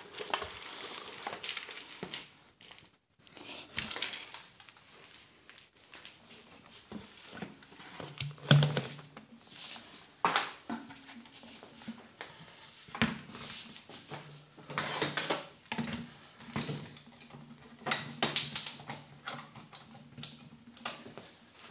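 Crumbled dog kibble tipped out of a plastic jar into a plastic bucket, with scattered knocks and clatters of the jar being handled, and later the jar set back down on its board. No motor is running.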